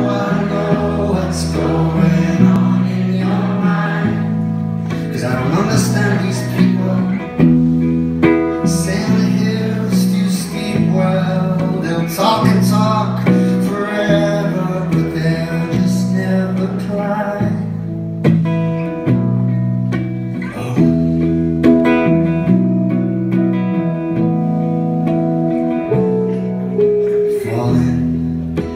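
Live band music: a hollow-body electric guitar strummed through a repeating chord progression over bass and drums, with a male voice singing.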